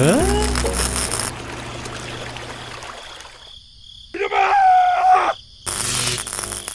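Edited-in cartoon sound effects: a quick rising pitched glide at the start, then a hiss that fades out. About four seconds in comes a short, loud, wavering cartoon cry, like a groan or scream.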